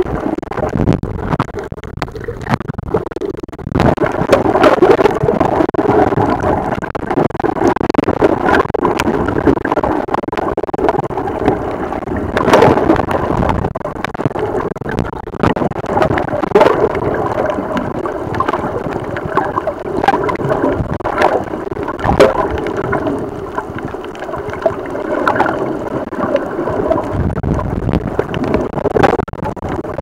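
Waves breaking overhead, heard from underwater: a continuous churning rush of turbulent water and bubbles that swells about four seconds in and then rises and falls, with sharp clicks and crackles scattered through it.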